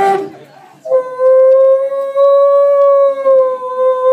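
A person's voice holding one long, steady high note, starting about a second in and wavering only slightly in pitch.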